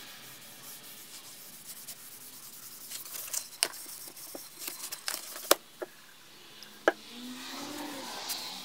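Cloth rubbing oil finish into a wooden cutting board, a steady scrubbing hiss. A few sharp wooden knocks as the board is turned and handled on the bench, the loudest two near the middle and about seven seconds in.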